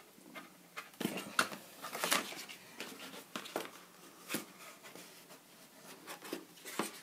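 Hands handling the cardboard packaging in a MacBook Pro box: scattered light taps, scrapes and rustles as the black card folder holding the quick start guide is pulled out of its tray, busiest about a second to two and a half seconds in.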